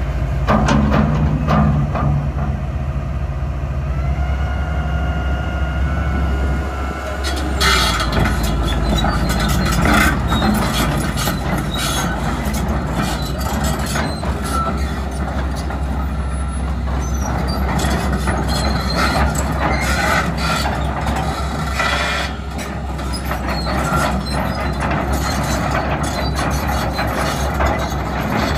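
2010 John Deere 450D LC hydraulic excavator running and travelling on its 36-inch triple-bar steel tracks: a steady low diesel drone, joined from about eight seconds in by repeated clanks and short squeaks from the track chains and undercarriage.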